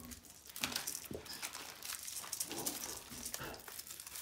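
Foil wrapper of a small chocolate egg being peeled off by hand, crinkling in irregular bursts.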